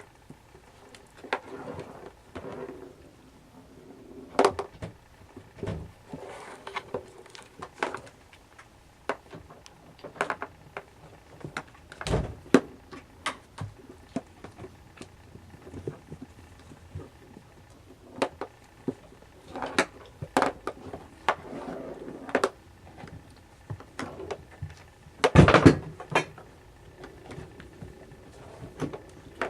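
Siamese kittens playing: scampering paws and scattered knocks and thumps at an irregular pace, with a louder clatter about 25 seconds in.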